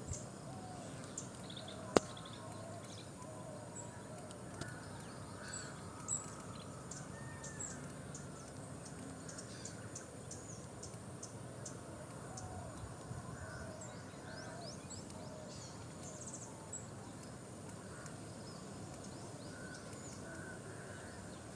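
Forest ambience with many birds calling: frequent short high chirps over lower, curving calls, against a steady low background hiss. A single sharp click about two seconds in.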